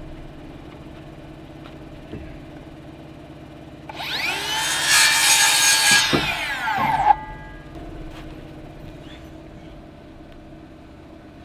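Power saw cutting through a wooden jack rafter for about three seconds: the blade whirs up, cuts through the board, and winds down about seven seconds in.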